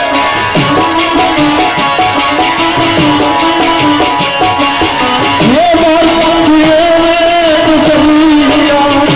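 Live Pothwari folk music: harmonium and plucked string instruments playing together, a held, wavering melody line over fast, even plucking. The melody line breaks and slides back up about five and a half seconds in.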